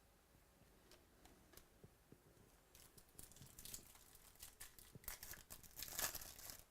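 Faint crinkling and tearing of a trading-card pack wrapper, with light clicks of cards being handled, growing denser and louder over the last couple of seconds.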